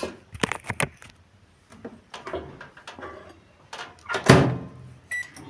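Clicks and knocks of a dish being handled at a microwave oven and its door being shut, the loudest knock about four seconds in.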